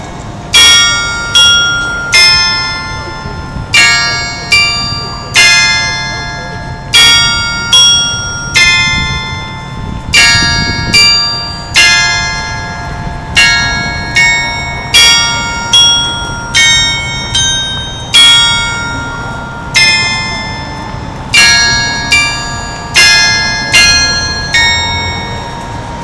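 Clock-tower chime playing a slow bell melody, one to two struck notes a second, each ringing on and fading. It is the building's 9 p.m. hourly chime, and the tune ends near the end.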